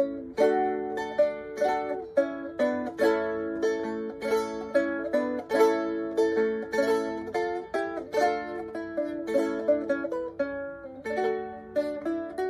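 Four-course, eight-string Renaissance guitar with Nylgut strings, built to the plans of the 1733 Spanish shipwreck guitar, played solo: chords and single notes plucked and strummed in a lively rhythm of about three strokes a second.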